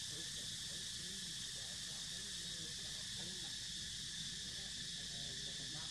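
A steady, high-pitched drone of insects in the surrounding vegetation, with faint wavering sounds lower down.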